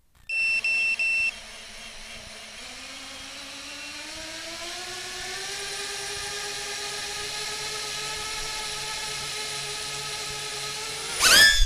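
FPV quadcopter's brushless motors: a few short electronic beeps, then the motors idling with a steady whine that creeps up in pitch over the first few seconds, then throttled up into a loud rising whine near the end as the quad lifts off.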